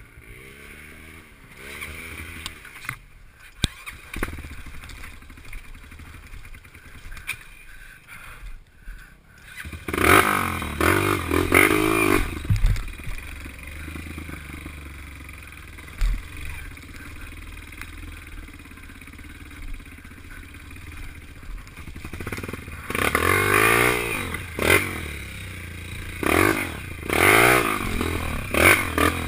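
Dirt bike engine ridden over a rutted trail. It runs low and fairly steady for the first third, then revs up in surges about a third of the way in and again twice near the end. The bike rattles over the ruts throughout.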